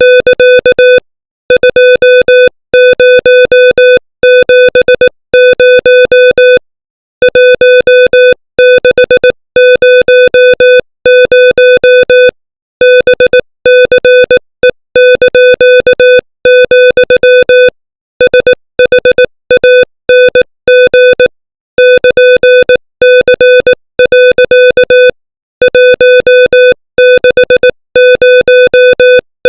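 Morse code sent at 18 words per minute as a single-pitched electronic beep, keyed on and off in short dots and longer dashes, with short gaps between letters and longer gaps between words.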